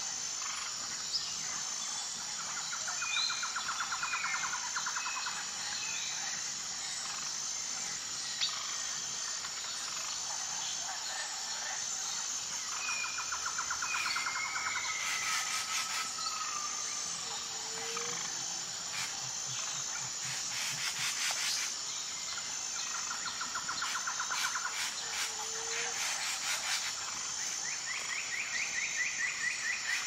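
Birds chirping, with short falling calls and rapid trills that come back about every ten seconds, over a steady high insect buzz, as in a chorus of crickets.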